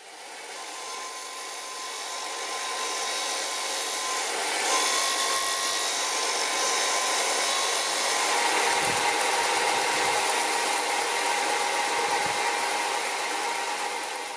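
Bench belt-and-disc sander running, with a wooden plane knob pressed against the abrasive as it is shaped, giving a steady hiss over the motor's hum. The sound fades in at the start and fades out near the end.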